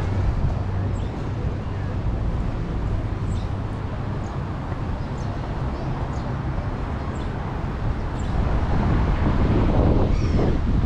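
Strong wind buffeting the microphone: a steady low rumble with a hiss over it, getting louder about eight seconds in.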